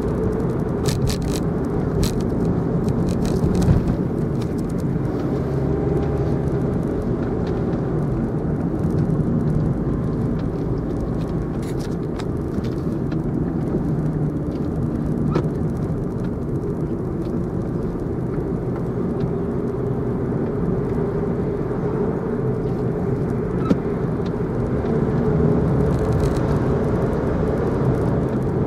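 Car driving along a road, heard from inside the cabin: a steady low rumble of engine and tyres, with occasional light clicks.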